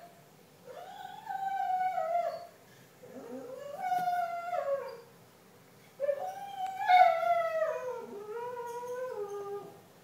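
A retriever howling, or 'singing', in three long drawn-out howls. Each rises and then slides down in pitch, and the last is the longest and loudest, ending in a lower wavering tail.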